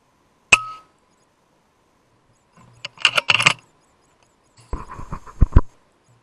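A .22 FX Impact M3 PCP air rifle fires once, a sharp crack with a brief ringing tone after it. It is followed by two bursts of metallic clicks and clinks, the second ending in a few heavier knocks that are the loudest sounds.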